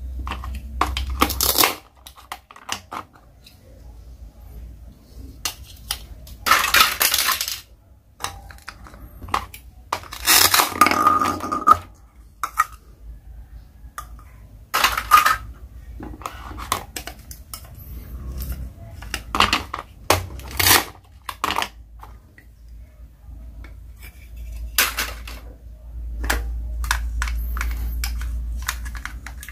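Plastic toy play food being cut apart with a toy plastic knife on a plastic cutting board: clicks and knocks of the plastic pieces and knife, with several rasping, tearing sounds about a second long as pieces are pulled apart.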